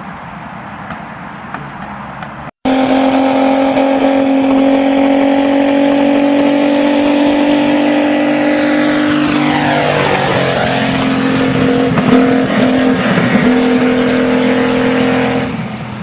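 A vehicle engine held at high, steady revs, loud, cutting in suddenly after a brief drop-out about two and a half seconds in. Around ten seconds in it sweeps past close by, then carries on steady until it fades near the end.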